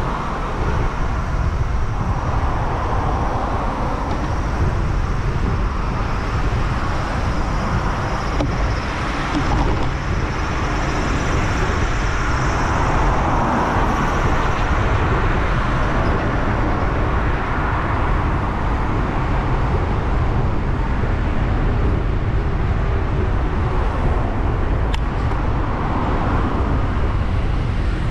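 Road traffic on an urban road, heard from a moving bicycle: cars passing in slow swells over a steady low rumble, with one brief sharp tick near the end.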